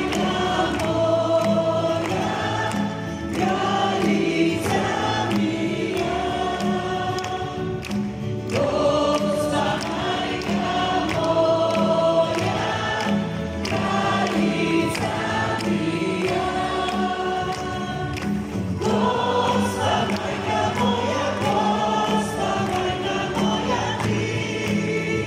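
A congregation singing a Croatian Marian hymn together with a live worship band, over a steady beat.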